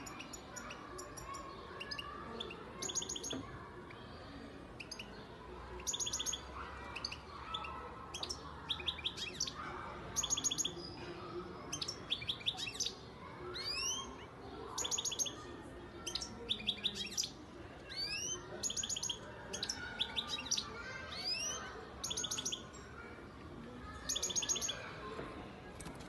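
European goldfinch singing: phrases of rapid, high twittering notes, about one every second or two, broken by quick rising sweeps.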